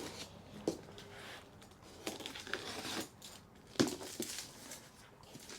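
Cardboard box and packaging being opened and handled: irregular rustling and scraping with small clicks, and a sharp knock about four seconds in.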